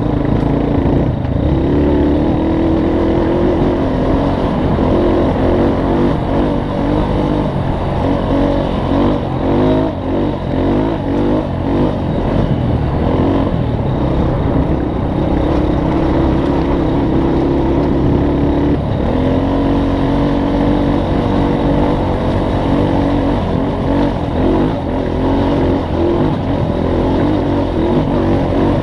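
Off-road vehicle engine running continuously under changing throttle, its pitch rising and falling as it rides a trail, over a heavy low rumble.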